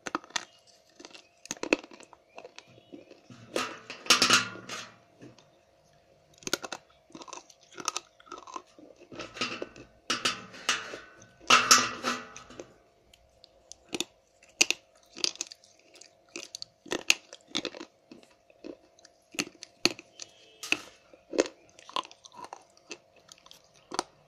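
Slate pencil being bitten and chewed: a long run of irregular, sharp, loud crunches, with the heaviest clusters about four seconds in and again around ten to twelve seconds.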